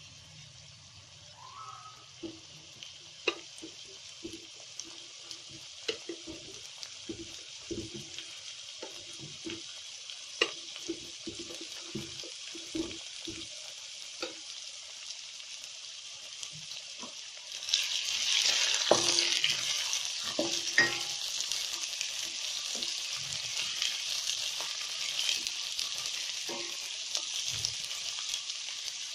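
Chopped onions frying in hot oil in a steel pot: a steady sizzle with many small pops. About two-thirds of the way through the sizzle grows louder as a wooden spatula stirs the onions.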